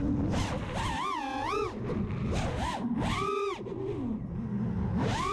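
Mini FPV quadcopter's brushless motors (DYS Fire 2600kv) whining, the pitch swooping up and down several times as the throttle is punched and eased, with a rushing noise from the props and wind underneath.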